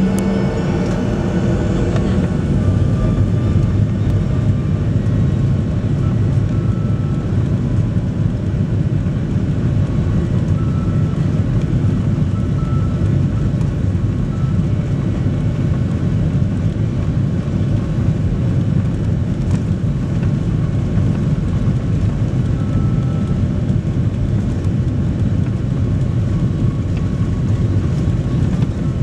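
Boeing 737 Next Generation's CFM56-7B jet engines at takeoff power with the wheels rolling down the runway, heard inside the cabin over the wing: a loud, steady low rumble.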